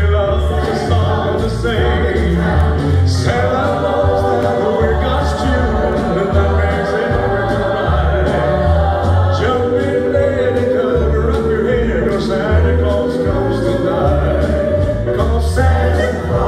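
Live Christmas song: a male lead singer with a group of backing singers over a band track with a steady beat.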